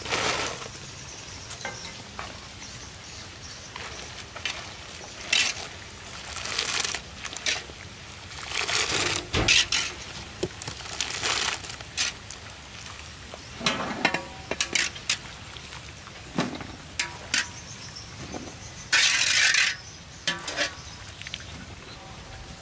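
Red chillies blanched in a large wok of steaming water: splashing as they are tipped in from a bamboo tray, then scattered splashes, scrapes and metal clinks as a wire-mesh skimmer stirs them and lifts them out, with water dripping from the skimmer. There are several loud, short bursts of noise through the stretch, the longest lasting about a second near the end.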